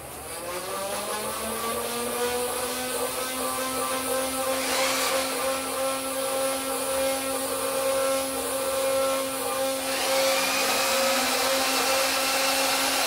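Nerf Titan CS-50 motorized blaster revving: its flywheel motor spins up with a rising whine over the first second, then runs at a steady pitch for the rest of the time.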